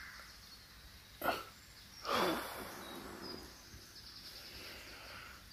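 Light rain falling on the leaves, a soft steady hiss, with faint birdsong high above it. A sharp click about a second in and a short louder sound sliding down in pitch about two seconds in stand out over the rain.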